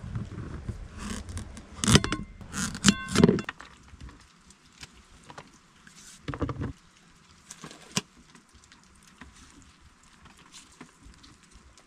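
A knife worked through a raw butternut squash, with several loud knocks as the blade strikes the plate beneath, the plate ringing briefly after some of them. After about four seconds there are only faint rustles and small clicks of food being handled.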